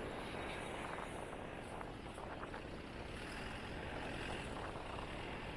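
Steady, fairly quiet outdoor street background noise with a low rumble and a few faint ticks.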